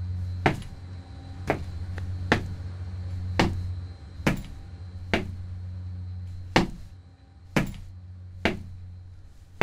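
A steady low hum, louder for the first few seconds, with sharp knocks at about one a second, nine in all.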